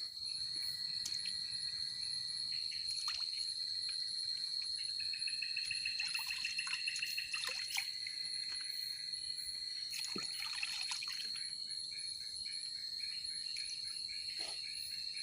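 Night chorus of crickets and other forest insects, a steady high shrill. About five seconds in, a second, lower insect trill joins for a couple of seconds. Scattered faint clicks and small handling knocks come from the camp.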